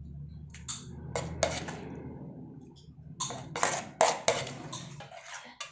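Kitchen clatter while plating food: a scattered run of short knocks and scrapes of utensils against plates and containers, loudest a little past halfway. A low hum underneath fades away by about halfway.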